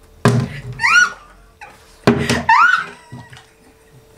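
Two sharp thumps about two seconds apart, each followed by loud, high-pitched vocal whoops that rise and then fall in pitch.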